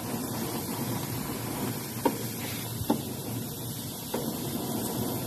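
Chicken pieces sizzling on a barbecue grill, a steady hiss, with three light clicks about two, three and four seconds in.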